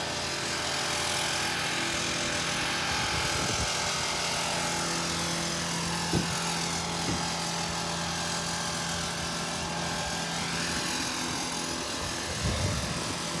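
An engine-driven machine running steadily, with a sharp knock about halfway through and a few smaller knocks near the end.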